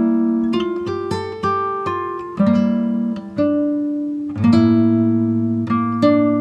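Background music led by acoustic guitar, a steady run of plucked notes and chords, each struck and then fading.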